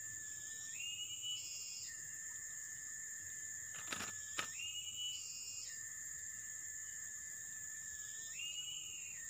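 Insect chorus: a steady high whine that steps up in pitch for about a second, three times, roughly every three and a half seconds. Two sharp clicks sound close together about four seconds in.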